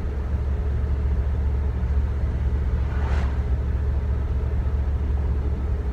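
Steady low engine and road rumble heard from inside the cab of a 1991 Chevy C3500 tow truck under way, its 305 V8 running on a four-barrel carburetor. About three seconds in, another car passes with a brief swelling and fading whoosh.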